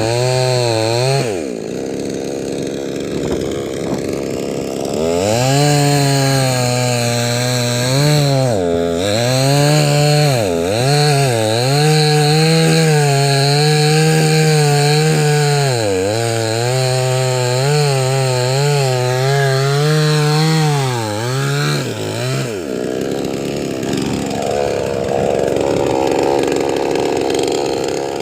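Two-stroke chainsaw cutting wood, its engine note sagging and recovering repeatedly as the chain bites. About six seconds before the end the pitched engine note gives way to a lower, noisier sound.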